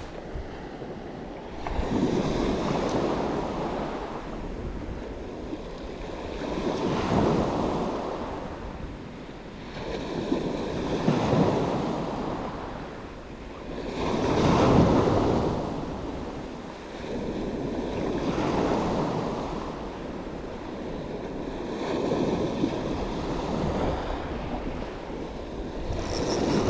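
Sea waves washing in, swelling and fading about every four seconds.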